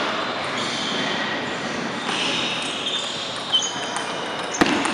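Table tennis rally: the celluloid ball clicking off paddle and table, with one sharp click near the end the loudest. A few short high squeaks come shortly before it, over the steady reverberant noise of a large gym hall.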